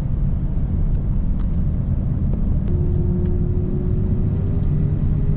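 Steady low rumble of an Airbus A350-900 taxiing, heard inside the cabin, its Rolls-Royce Trent XWB engines at low thrust as it rolls along the taxiway. A faint steady hum joins about three seconds in, with a few light clicks.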